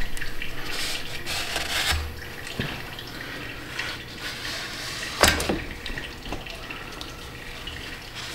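Gloved hand scrubbing a cloth shop rag around the metal filler flange of an excavator's hydraulic oil tank, making an uneven swishing and rubbing. The swishes come fast in the first two seconds and ease off, with one sharper, louder scrape about five seconds in.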